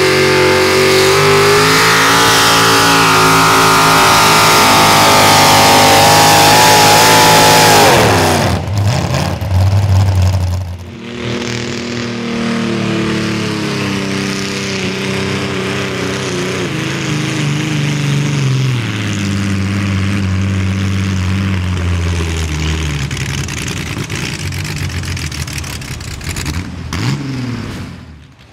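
Modified pulling-tractor engine at full throttle under load, its pitch slowly sagging as the pull goes on. About eight seconds in the revs drop sharply as the throttle is cut, and after a brief break the engine runs on at lower, uneven revs.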